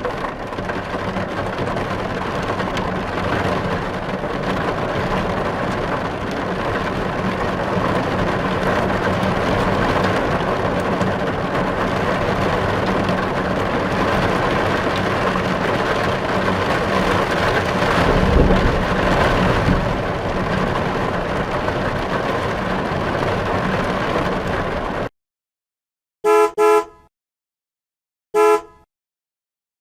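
Steady rumble of a car being driven, engine and road noise together, which cuts off suddenly. Then a car horn honks: two quick beeps, then one more beep.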